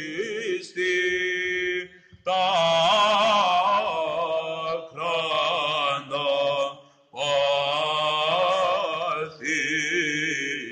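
Male cantor singing Byzantine chant: long wordless melismatic phrases, with the pitch turning and ornamenting, broken by two short breaths, about two and seven seconds in. A low, steady drone is held beneath, the ison.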